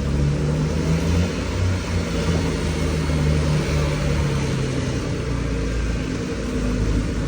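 Heuliez GX 437 articulated city bus's engine running with a steady low, tractor-like noise, unusual for this bus.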